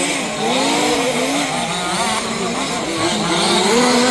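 Several 1/5-scale petrol two-stroke RC car engines racing together, their overlapping pitches constantly rising and falling as the cars accelerate and brake around the track.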